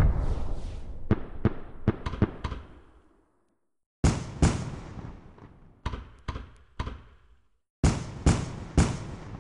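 Fireworks going off in rapid volleys of sharp bangs, each with a rumbling, echoing tail. There are three quick flurries, separated by two short breaks.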